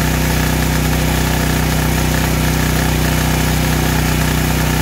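Generac MegaForce 6500 portable generator's engine running steadily at its governed full speed with the idle control switched off, set to about 62 hertz of output. A steady, even engine sound.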